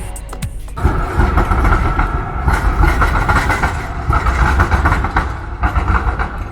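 Melbourne suburban train running on the rails: a loud, steady rumble with a band of higher rail noise above it, coming in about a second in as music fades out.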